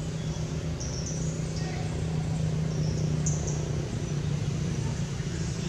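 Outdoor background ambience: a steady low hum, with short, high chirps about every second.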